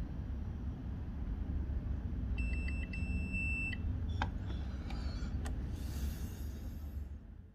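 A steady low hum with an electronic beeper: a few short pips, then a steady high tone of about a second and a half, then a few sharp clicks. The sound fades out near the end.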